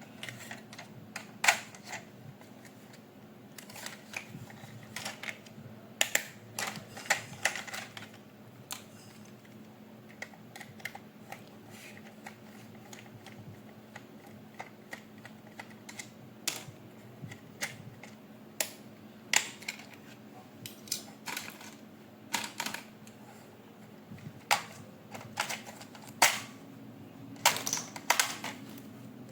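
Irregular clicks, taps and short rattles of hard plastic toy parts and packaging being handled, some in quick clusters, over a faint steady hum.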